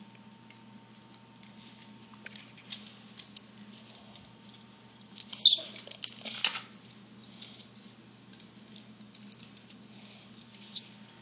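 Small hard-plastic toy parts clicking and rustling as an action figure and its accessories are handled and fitted together, with a louder cluster of clicks and handling noise about halfway through and one more sharp click near the end.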